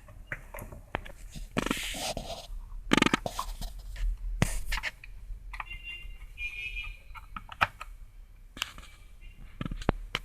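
Small screws and metal parts being picked through and handled at a workbench: scattered clicks and scrapes, with short rustling bursts in the first half and a brief high rattle about six seconds in.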